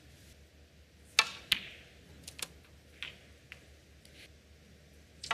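Snooker balls clicking on a table: two sharp clicks about a second in, a third of a second apart, as the cue strikes the cue ball and it hits a red, then a few fainter clicks of the balls.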